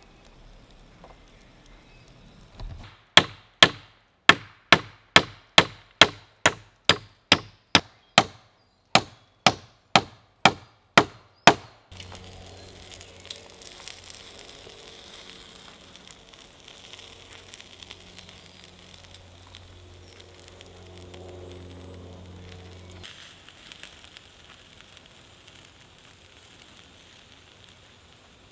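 A run of about seventeen sharp chopping blows on wood, roughly two a second with a brief pause midway, stopping abruptly about twelve seconds in. Then a quieter steady hiss with a low hum while pork kebabs grill on a wire rack over smoking campfire embers.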